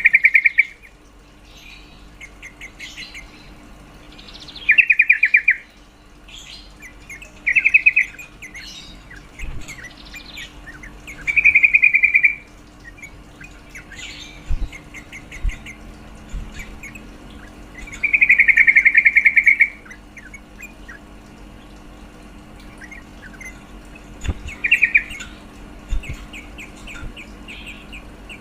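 Female yellow-vented bulbul (trucukan) calling: six short, rapid chattering bursts at irregular gaps, with softer chirps between them. This is the female's call that draws and excites males.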